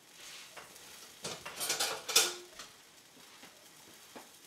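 Metal spatula scraping and clinking against the grates of an indoor smokeless grill while getting under a grouper steak to flip it. The loudest moment is a sharp clink with a brief ring about two seconds in.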